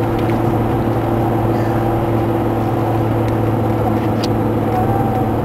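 Cabin noise of a 2002 Jaguar X-type 2.5 cruising: the 2.5-litre V6 drones at a steady pitch over a steady hiss of tyres on the road.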